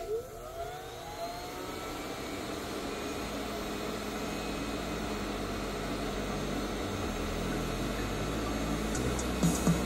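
A 1500-watt heat gun switched on: a click, then its blower fan spins up with a rising whine over the first second or two and settles into a steady blowing rush that slowly grows louder, the gun drawing around a thousand watts.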